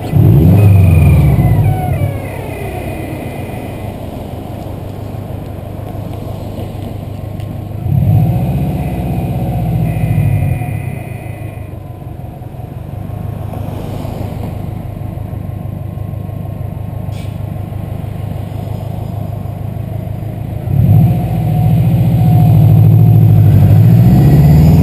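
Turbocharged flat-four engine of a Stage 2 Subaru WRX pulling hard under acceleration three times, with cruising between. A hunting duck call fitted to its GReddy blow-off valve gives a quack-like squawk, falling in pitch, as the throttle lifts: once near the start and again about ten seconds in.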